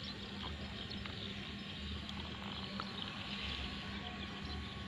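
Outdoor ambience: faint, steady high-pitched chirping of insects or birds over a low steady hum, with a few soft low thumps.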